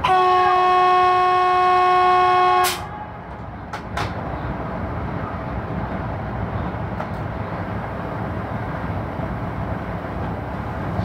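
Electric locomotive's horn sounded in one steady blast of nearly three seconds, then two sharp clicks and the steady rumble of the train running, heard from inside the cab.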